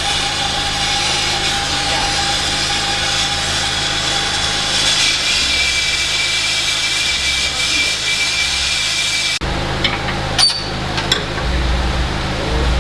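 A power tool running with a steady whine over a harsh hiss, stopping abruptly about nine seconds in, followed by a few sharp clicks.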